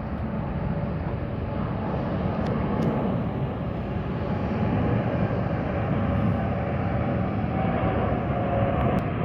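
Jet engines of an airliner formation flying past: an Airbus A380 with a Boeing 777 and an Airbus A350 above it. A steady, fairly quiet jet rumble with a faint whine, slowly growing louder.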